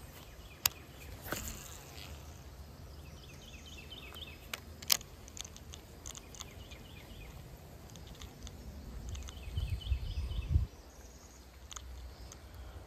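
Quiet outdoor ambience with insects chirping in short high runs, twice. A few sharp clicks, and a brief low rumble about ten seconds in that cuts off suddenly.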